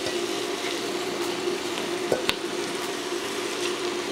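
Onions, celery and carrots sizzling steadily in butter in a Dutch oven as raw chicken thighs are laid on top, with a short knock about two seconds in.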